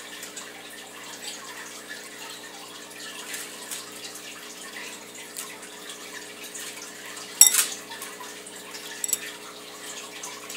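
Amber bead bracelets being dropped into a bowl of salt water and pushed about by hand: small splashes and light clicking of beads, with a louder clatter about seven and a half seconds in and a smaller one near nine seconds.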